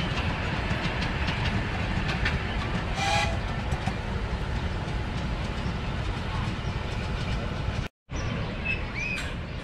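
Miniature ride-on passenger train running along its track: a steady rumble with scattered clicks of wheels on the rails, and a brief pitched toot about three seconds in. The sound drops out for a moment near the end.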